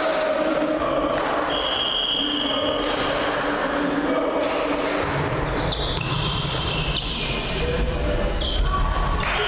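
Indoor volleyball rally: sharp smacks of the ball being played, amid players and spectators shouting.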